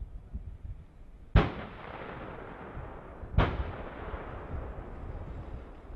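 Two heavy gun blasts about two seconds apart, each followed by a long rolling echo, over a low rumble.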